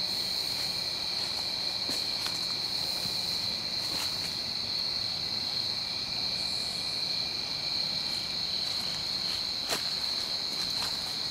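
Steady chorus of night insects, crickets trilling continuously on a high pitch with a fainter lower band beneath, and a few soft snaps now and then.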